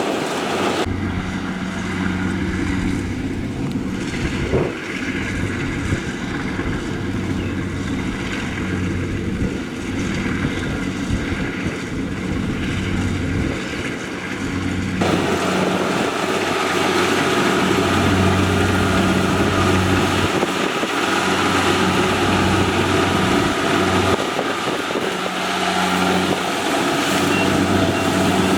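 Diesel engine of a rice combine harvester running steadily with a low hum. The sound changes abruptly about halfway through.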